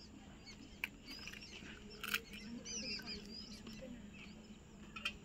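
Small birds chirping faintly: many short, rapid chirps scattered throughout, with a few sharp clicks, the loudest about two seconds in.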